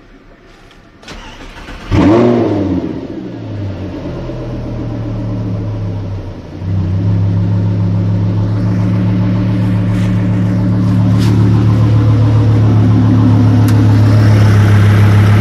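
Lamborghini Gallardo's 5.2 FSI V10 cranking briefly, then catching with a rev flare about two seconds in and settling into a steady idle that steps up a little about six and a half seconds in. It runs evenly, without misfiring, now that a faulty ignition coil has been replaced.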